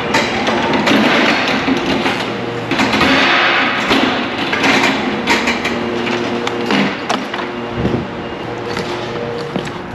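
Electric pallet truck driving across a concrete warehouse floor: a steady motor hum under a rushing running noise, with repeated knocks and clanks from the truck and its forks as it rolls.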